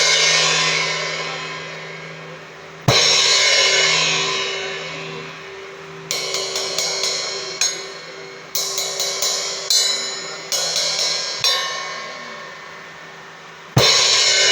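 Meinl HCS 18-inch brass crash-ride cymbal: a hard crash about three seconds in rings out and fades. Then come short runs of quicker, lighter strokes, several a second, and another hard crash near the end.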